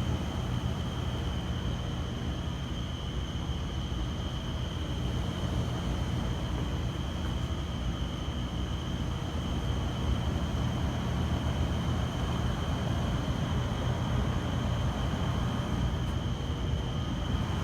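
Steady low rumble and hiss of outdoor background noise, with a faint constant high-pitched tone running through it; no knocks.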